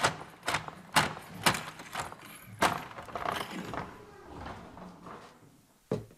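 Door locks and latches being fastened by hand: a run of sharp metal clicks and clacks about every half second, then lighter rattling that dies away, with one short knock near the end.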